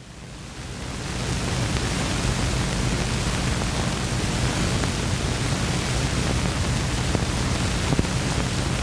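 Steady hiss with a low hum from a 16mm film's soundtrack running with no narration on it. The hiss rises in over the first second, and a few faint clicks come near the end.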